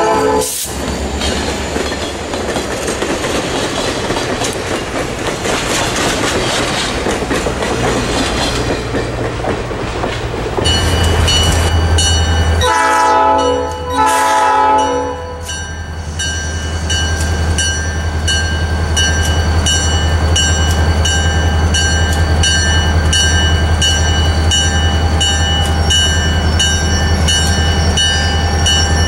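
Passenger cars and a caboose rolling past with wheel-on-rail clatter. After a cut, the low rumble of an SD40-2 diesel locomotive's 16-cylinder engine, which sounds its air horn in two short blasts about halfway through. A grade-crossing bell dings steadily and evenly under the engine through the rest.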